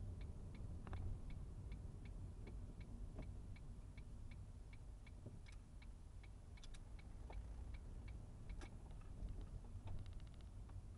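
Car's turn-signal indicator clicking at an even rate of about three clicks a second, over a faint low rumble of engine and road. Near the end the clicks give way to a faster run of ticks.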